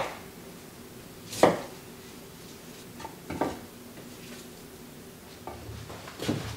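Kitchen knife cutting broccoli on a wooden cutting board: a handful of separate knocks of the blade through the stalk onto the board, the loudest about a second and a half in, with a few lighter ones after.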